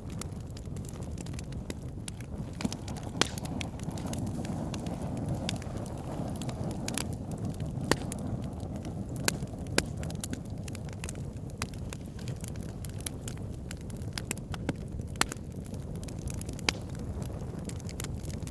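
Wood campfire burning: a steady low rush of flame with irregular crackles and a few sharp pops of burning logs.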